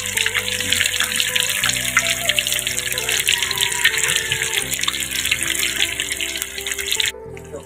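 Tofu deep-frying in hot oil in a steel wok, a dense crackling sizzle that cuts off suddenly about seven seconds in. Background music with held chords plays underneath.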